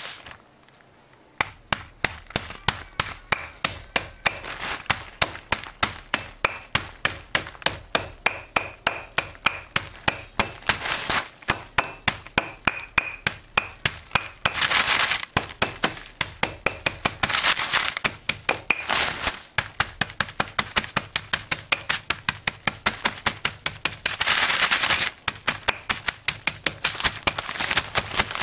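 A wooden rolling pin pounding biscuits inside a plastic bag on a granite counter, crushing them to crumbs: about four sharp knocks a second, starting about a second and a half in. A few times the knocking gives way to a longer crunching rustle as the pin works over the crumbs in the bag.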